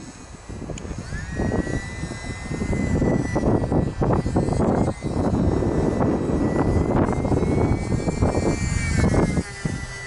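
Wind gusting over the microphone, the loudest sound, with the thin high whine of a UMX Sbach 342 electric RC model plane's motor and propeller coming in about a second in. The whine rises slightly in pitch near the end, then drops.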